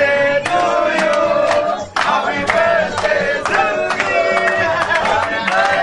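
A group of men singing together, with hand clapping in time, about two claps a second.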